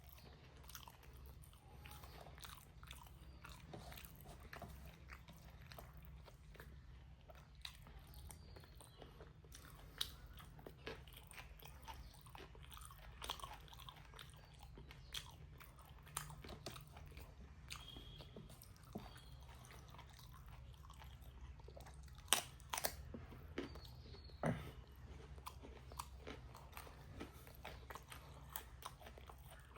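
A person chewing and biting pork with rice close to the microphone: a run of small wet mouth clicks and smacks with occasional sharper crunches, the loudest a cluster about two-thirds of the way through. A faint steady low hum lies underneath.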